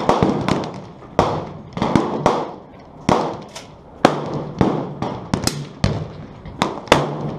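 Rifle fire from a busy shooting line: a rapid, irregular string of about fifteen shots from several rifles, some overlapping, each trailing off in a short echo.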